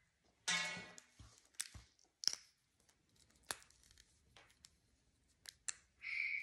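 Scattered light clicks and taps from an African grey parrot handling a toy basketball and its hoop, with a short buzzy sound about half a second in and a brief hissy squeak near the end.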